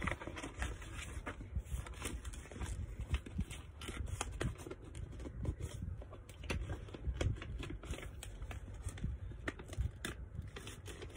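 Quiet handling noise: scattered soft clicks and rustles over a low, steady room rumble.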